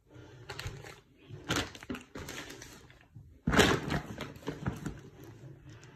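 Plastic packaging crinkling and rustling in irregular bursts as wrapped bedding packs are handled, the loudest crinkle about three and a half seconds in.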